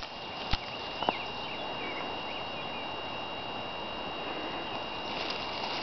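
Quiet riverbank ambience: a steady hiss with a faint high whine, two sharp clicks in the first second or so, and a few faint chirps.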